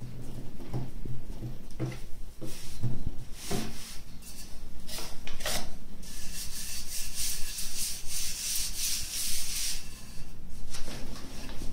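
Hands pressing and patting a ball of noodle dough flat on a floured tabletop, with soft low thuds. From about six seconds in comes a long, even, dry rubbing as flour is rubbed along a wooden rolling pin by hand.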